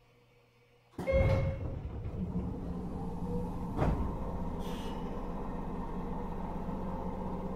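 Inside a JR 103 series 1500 electric train: a sudden loud burst of noise about a second in, then the steady hum of the train's onboard machinery, with a sharp clunk near the four-second mark and a short hiss of air just after.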